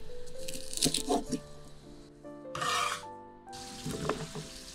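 A chef's knife chopping red bell pepper on a wooden cutting board a few times about a second in, then a brief rustling scrape as the pepper pieces are pushed off the knife into a bowl, with light clicks of pieces landing near the end. Soft background music with sustained notes plays throughout.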